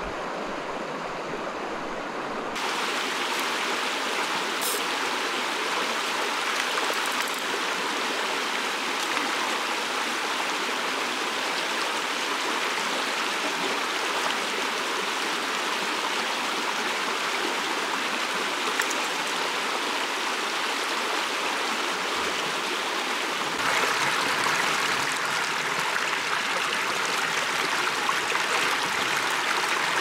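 Shallow mountain stream running steadily over stones and gravel, an even rushing babble of water. It gets louder about two and a half seconds in and again near the end.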